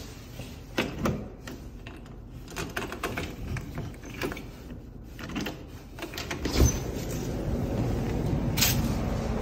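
A door's knob and latch clicking and rattling as it is worked, with a heavy thump as the door is pulled open about two-thirds of the way in. After that comes a steady rush of outdoor city noise.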